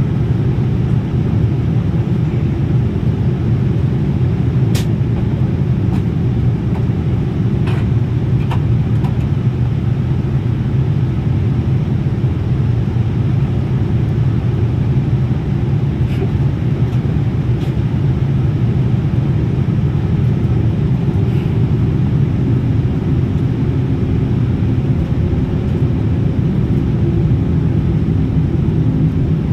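Steady low rumble inside the cabin of a Boeing 787-10 in flight: engine and airflow noise heard at a window seat. A few short clicks sound over it, the sharpest about five seconds in.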